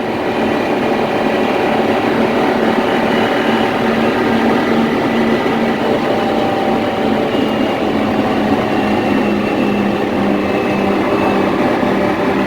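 Truck engine running steadily, a constant drone with a few steady tones that hold unchanged throughout.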